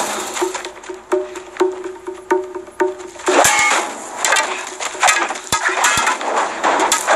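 Staged sword-and-shield fight: repeated sharp clashes of blades and spear shafts striking shields and metal, with a fast run of blows in the middle and more near the end, over a film score with a steady pulsing beat.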